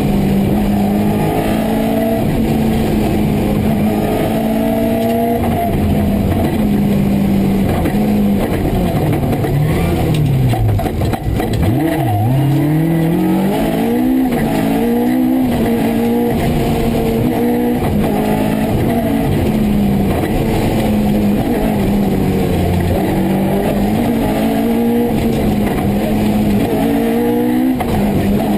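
Rally car engine heard from inside the cockpit at full stage speed, the revs climbing and dropping with each gear change. About eleven seconds in the revs fall right away, then climb back up through the gears.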